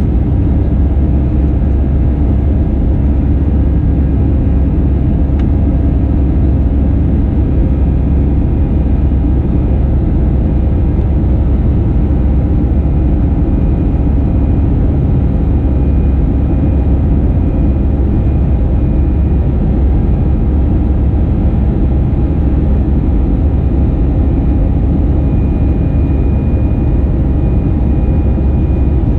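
Cabin noise inside an Airbus A320-214 climbing after takeoff: its CFM56 turbofans and the rushing air give a steady, loud low rumble with faint steady engine tones above it.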